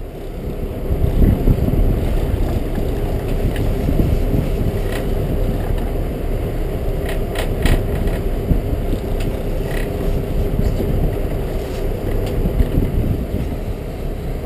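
Sport-fishing boat's engines running with a steady hum under a low, uneven rumble. A few sharp clicks come about seven to eight seconds in.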